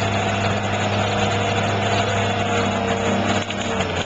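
Heavy engine, likely the crane's diesel, running steadily at an even pitch.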